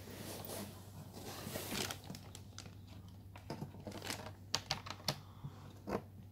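Rustling of a cable being handled, then a run of small sharp plastic clicks and taps as a USB mouse plug is fumbled against and pushed into a gaming laptop's side USB port, the clicks coming from about halfway through.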